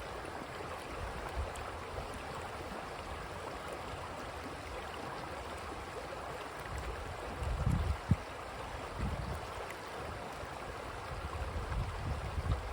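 Creek water running steadily. About seven seconds in, low rumbling bumps on the microphone rise over it, with one sharp knock about eight seconds in, and more rumbling near the end.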